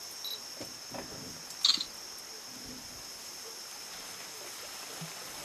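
Insects chirring steadily at a high pitch in the reedlands, with one short sharp click about two seconds in.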